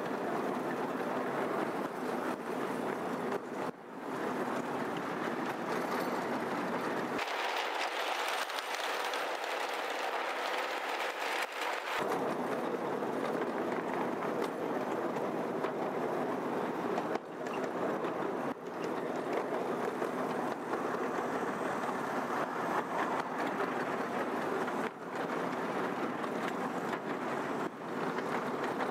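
A 12-inch gauge ride-on miniature train running along its track, heard from on board: a steady running noise with an occasional knock from the wheels.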